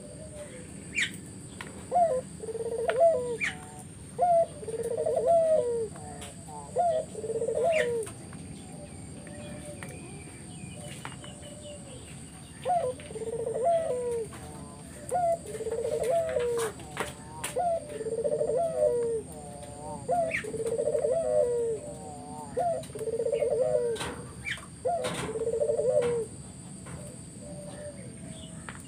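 Puter (collared dove) cooing vigorously in a long series of rolling coos, with a gap of about four seconds near the middle. Small birds chirp sharply in the background.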